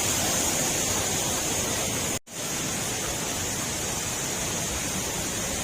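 Waterfall water pouring, a steady rushing noise. It cuts out for an instant about two seconds in, then carries on slightly quieter.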